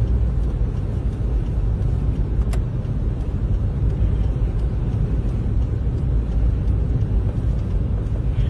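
Steady low rumble of a car driving, heard from inside the cabin: engine and tyre noise on a snow-covered road. A single faint click sounds about two and a half seconds in.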